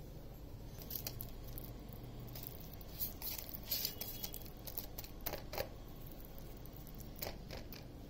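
Fingers mixing spice powders and ginger-garlic paste into a masala on a steel plate: soft squishing with scattered small clicks and scrapes, a few sharper ones around the middle.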